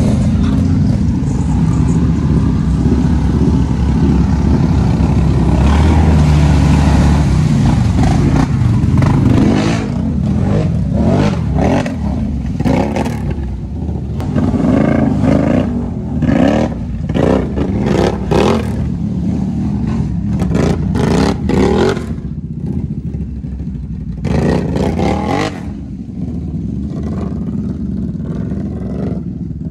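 ATV engines running hard through mud, with repeated surges of revving from about ten seconds in that ease off near the end.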